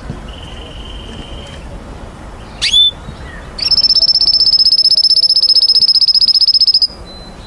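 Canary singing: a held high whistled note, a quick upward-sweeping call, then a loud, very fast, even trill lasting about three seconds.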